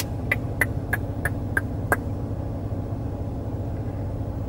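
Car engine idling steadily, heard from inside the cabin. In the first two seconds there is a run of seven light, evenly spaced clicks, about three a second.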